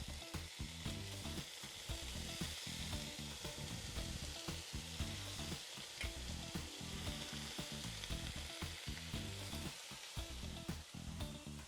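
Pickled red onions sizzling steadily as they fry in a hot pan.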